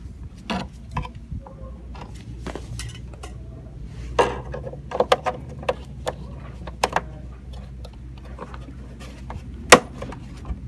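Gloved hands handling a rusted sheet-steel plate and the van's steel sill channel: scattered light metallic clinks, taps and scrapes, with one sharp click near the end, over a low steady hum.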